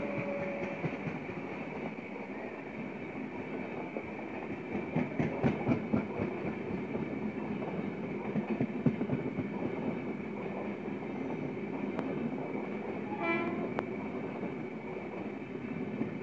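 Passenger coaches of a fast train rushing past close by: a steady roar of steel wheels on rail, with rhythmic clickety-clack as the wheel sets cross rail joints, loudest about five to six seconds in and again near nine seconds. The tail of the electric locomotive's horn fades out in the first moment.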